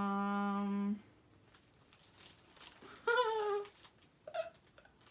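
A steady hummed tone ends about a second in. Then comes light rustling and crinkling of paper packaging, with a short falling vocal sound about three seconds in.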